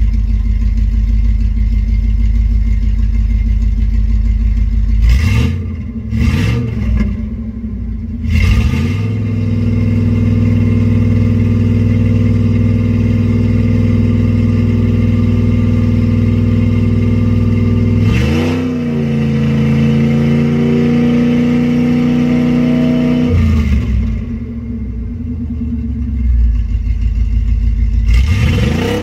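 1997 Chevy Silverado 305 V8 running through Edelbrock shorty headers and a Gibson MWA muffler. It idles, is revved in three quick blips, is held at a raised speed for several seconds, steps down twice to idle and is revved again near the end. The engine has a bad misfire, which the owner traced to a cheap replacement EGR valve.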